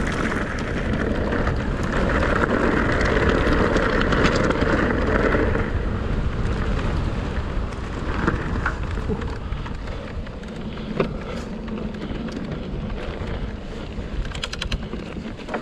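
Mountain bike riding fast down a rough fell track: a steady rush of wind and tyre noise over the mounted camera's microphone, loudest for the first few seconds and easing a little after. Sharp knocks now and then as the bike hits bumps, and a short run of rapid clicks near the end.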